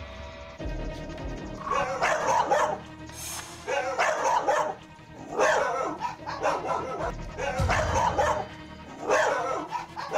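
Several dogs barking together in repeated bouts, starting about two seconds in: a leashed border collie joining the kennel dogs in barking at a man walking through the yard.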